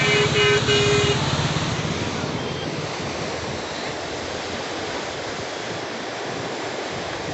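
Water rushing through the barrage's sluice gates, a steady noise that grows fainter over the first few seconds. Near the start a horn beeps three times.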